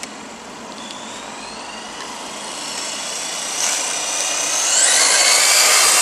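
Electric RC car's motor whining at speed as it drives closer, the high whine climbing in pitch and growing louder. It is loudest as the car passes near the end.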